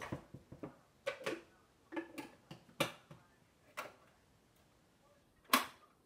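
A series of sharp clicks and knocks, about ten in six seconds at uneven spacing, the loudest near the end: the blender jar and its lid being handled and fitted. The blender motor is not running.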